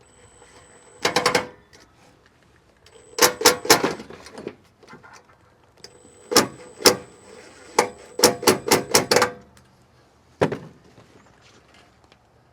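Bursts of sharp metallic knocks and clatters, in quick runs of several strikes, from tools and sheet-metal parts being handled while an RV furnace is reassembled.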